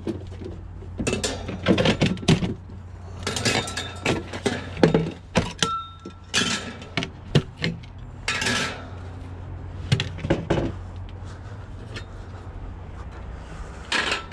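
Scrap items being handled: irregular knocks, clatters and clinks of metal and plastic pieces being picked up and moved, one with a brief ringing clink about six seconds in. A steady low hum runs underneath.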